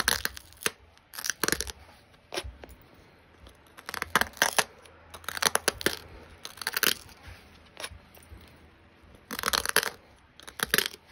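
Small flakes snapping off the edge of an opalite arrowhead preform under a copper-tipped pressure flaker, as short crisp cracks and crackles in about eight separate clusters, each under half a second.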